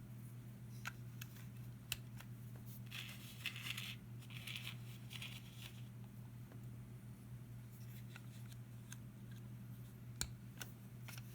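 Small plastic Lego pieces being handled and snapped together: scattered faint clicks, with a few seconds of rustling about three to six seconds in, over a steady low hum.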